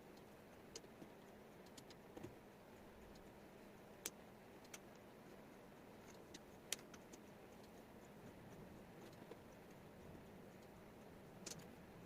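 Faint room tone with about ten light, scattered clicks, the sharpest about four and six and a half seconds in: wooden jigsaw puzzle pieces being picked up and set down on a tabletop.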